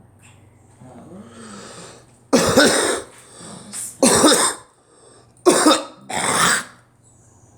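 A person coughing: a quieter lead-in, then four loud, harsh coughs over about four seconds, starting a little past two seconds in.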